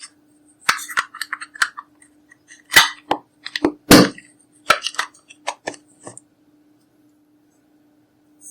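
Clear slime being squeezed and folded by hand: a quick, uneven run of sharp sticky clicks and pops, the two loudest about three and four seconds in, over a steady low hum.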